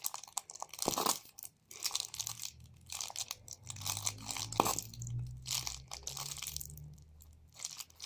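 Plastic glue bottle crinkling and crackling as it is squeezed by hand, with irregular crackles, while the last of the white school glue is squeezed out. A low hum sits underneath through the middle few seconds.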